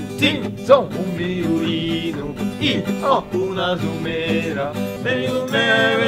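Acoustic guitar playing a country-style song, with plucked and strummed notes.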